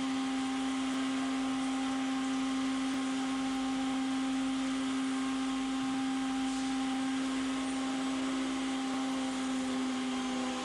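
CNC router running steadily: a constant motor hum with a few higher steady whines over a hiss, unchanging throughout.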